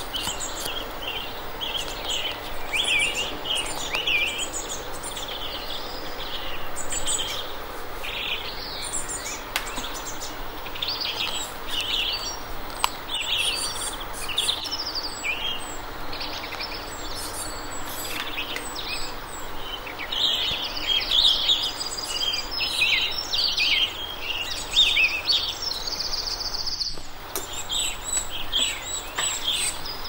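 Blue tits and great tits, adults with fledgling young, chirping without pause in dense, overlapping short high calls. Near the end one high trilled note is held for about a second and a half.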